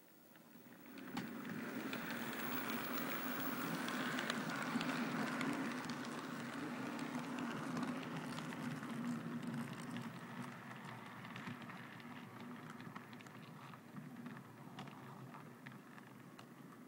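Model train running along the track: the electric motors of two Class 57 model locomotives humming, with light clicking from the wheels on the rails. It swells about a second in as the train approaches, then slowly fades as it moves away. The locos have DCC control but no sound fitted, so this is their bare mechanical running noise.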